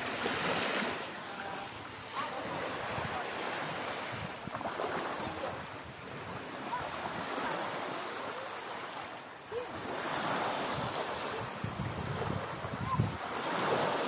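Small waves breaking and washing up a sandy beach, the surf swelling and falling back about four times, with wind buffeting the microphone.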